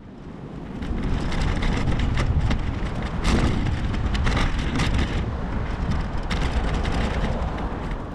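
Road traffic noise heard while cycling along a road: a steady low rumble with frequent crackles, swelling up over the first second and easing a little near the end.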